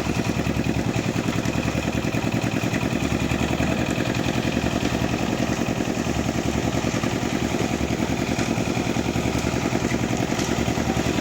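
Small engine idling steadily with a fast, even chugging.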